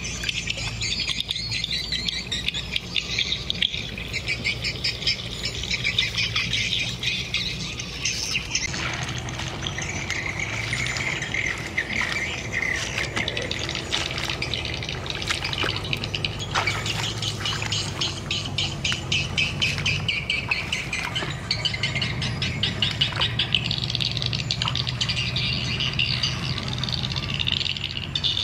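A steady chorus of birds chirping and squawking.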